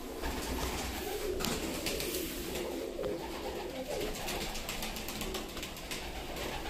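Domestic pigeons cooing: a steady, low, warbling murmur of several birds, with scattered faint clicks.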